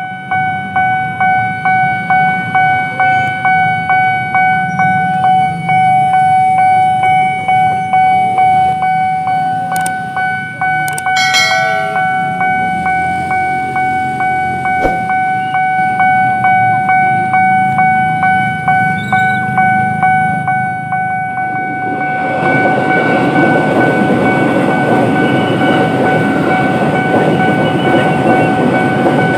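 Level crossing warning bell ringing in steady, evenly spaced dings, with a brief extra tone about eleven seconds in. About 22 seconds in, a KRL commuter electric train arrives and runs past with a loud rumble of wheels on rails.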